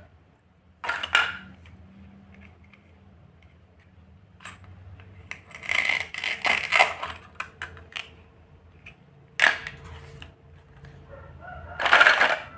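Plastic toy fruit pieces and a plastic toy knife picked up and set down on a cutting board, in four short clattering bursts. Near the end, a plastic basket full of toy fruit pieces is lifted and the pieces rattle together in the loudest burst.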